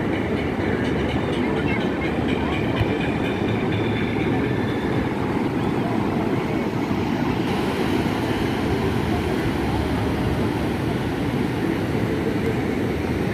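Steady low rumble of wind buffeting the microphone over rough surf breaking on the beach, with faint distant voices.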